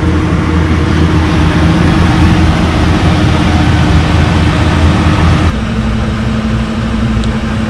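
Steady engine drone with a low hum; its tone changes abruptly about five and a half seconds in.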